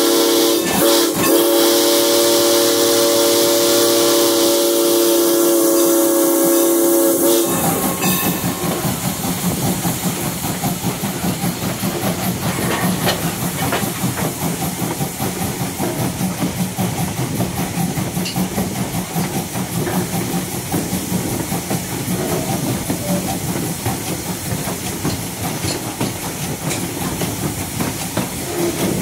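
Steam locomotive's chime whistle, the Southern Pacific six-chime fitted to ex-Norfolk and Western 475, sounding one long multi-note blast that cuts off suddenly about seven seconds in. After it, the steady running noise of the train rolling along the track.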